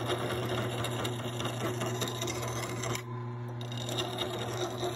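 Drill press running, spinning a bolt loaded with metal sleeves while a hand file is held against them to grind down tack welds: a steady motor hum under the scraping rasp of the file on the turning steel. The scraping drops away for a moment about three seconds in.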